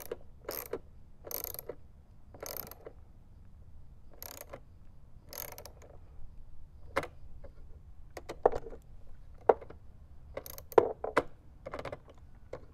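Ratchet socket wrench clicking in short strokes as screws are tightened, about one stroke a second at first. Later come sharper, separate clicks.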